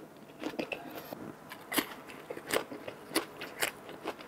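Close-up chewing of grilled pork skin, with scattered crunching and crackling clicks, about five sharp ones, between quieter mouth noises.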